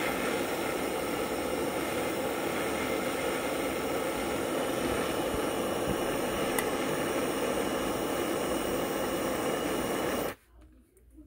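Handheld gas torch flame hissing steadily as it heats a brass pump tube to melt the solder inside. The hiss stops suddenly about ten seconds in, when the torch is shut off.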